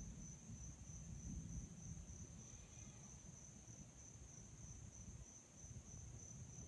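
Faint steady high-pitched chirring of insects, with a faint low rumble underneath.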